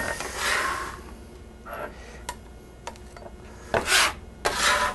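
Steel bench scraper scraping across a wooden cutting board, gathering up chopped parsley, in several separate strokes with light taps between them. The strongest strokes come at the start and near the end.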